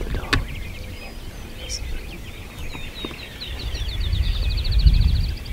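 Wild songbirds singing, ending in a fast trill of about fifteen repeated notes a second. A sharp click comes near the start, and a low rumble on the microphone grows from about four seconds in and is the loudest sound.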